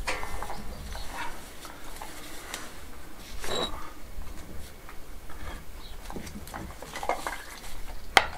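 Small stones being pushed by hand into gaps in an old lime-mortared rubble-stone wall: faint scrapes and clinks of stone on stone, then a few sharp taps of a hammer on the stones near the end.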